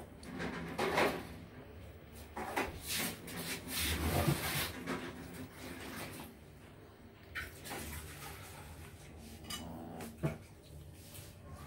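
Several cats eating rice off a board: irregular small clicks and scrapes of mouths against the board, with chewing and licking.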